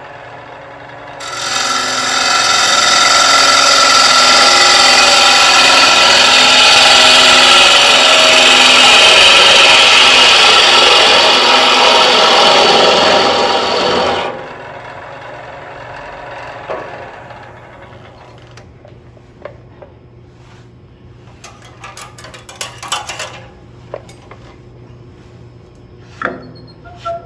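Bowl gouge cutting into a spinning wood bowl blank on a lathe, hollowing the inside of the bowl: a loud steady cutting noise that starts about a second in and stops at about 14 seconds. After it stops, a low steady hum is left, with a few light clicks and taps near the end.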